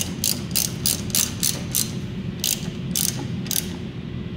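Hand ratchet wrench clicking as a bolt is run in, about three clicks a second for two seconds, then after a short pause three slower clicks.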